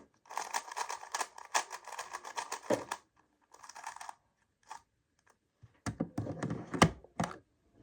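A magnetic GAN speedcube being turned quickly through an algorithm, its plastic layers clicking in rapid runs. There is a short pause in the middle, and a few louder knocks come near the end.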